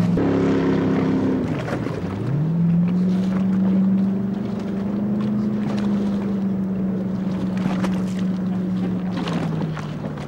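Q Boat stunt speedboat's engine running hard. Its pitch dips about a second and a half in and climbs back as the throttle opens again, then holds a steady high note and eases slightly near the end.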